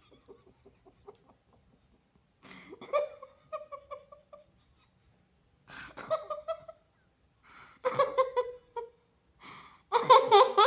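A woman giggling softly in four short bursts of repeated pulses, the last one the loudest, with faint breathing near the start.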